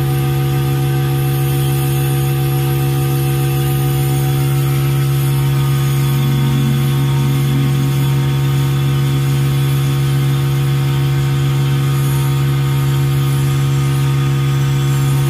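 Steady low machine hum that does not change, with a constant drone and fixed overtones above it.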